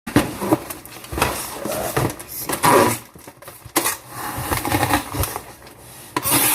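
A cardboard snack box and the plastic chip bags inside it being opened and handled: irregular crinkling, rustling and knocks of packaging, with louder bursts now and then.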